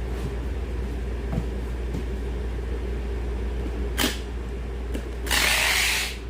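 Packing-work handling noises over a steady low machine hum: a sharp knock about four seconds in, then a loud rasping noise lasting under a second near the end.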